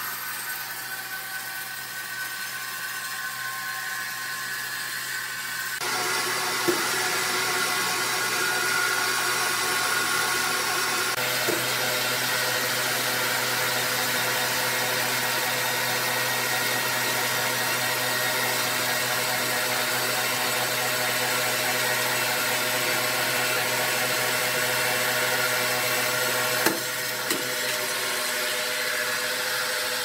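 Sawmill machinery running steadily, with a constant hum. It gets louder about six seconds in, and a few faint knocks sound near the start and near the end.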